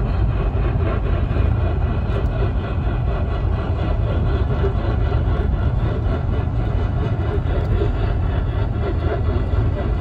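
Steady rushing noise with a strong low rumble from a car's AM radio tuned to 1500 kHz, carrying no speech or alert tones.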